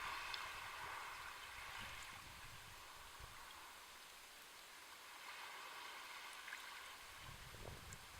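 Faint sea waves washing on the shore of the Sea of Japan: a soft, steady hiss of water that swells at the start and again about five seconds in.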